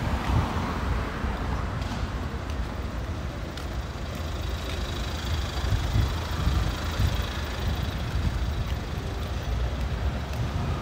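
Night-time city street traffic: car engines and road noise from nearby vehicles over a steady low rumble.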